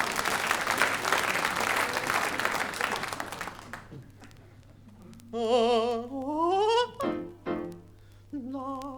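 Audience applause, fading out about four seconds in. Then an operatic falsetto voice with a wide vibrato swoops upward, breaks off for a few short sounds, and swoops upward again near the end.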